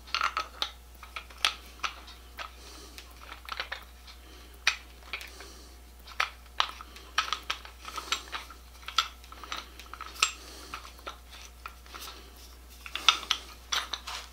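Irregular metallic clicks and clinks as a crosscut saw's steel handle clevis is fitted and turned into a newly drilled wooden handle, with clusters of quick clicks near the start and again near the end.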